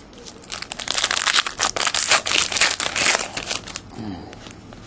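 Wrapper of a trading card pack crinkling as it is torn open by hand, a dense run of crackles lasting about three seconds.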